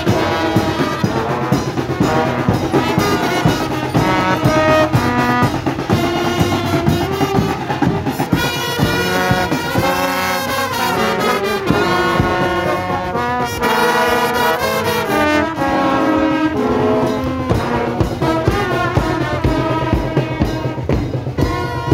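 Marching brass band playing a tune, led by trombones with trumpets and a saxophone.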